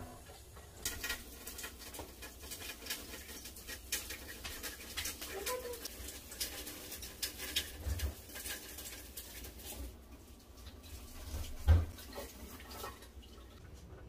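Dishes and utensils clinking and knocking in a kitchen sink, in quick irregular clicks, with a heavier thump about twelve seconds in.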